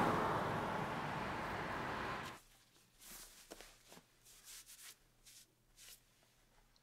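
A car driving past, its noise fading until it cuts off abruptly about two seconds in. Then faint, scattered rustles of clothing as a cardigan is tugged and straightened.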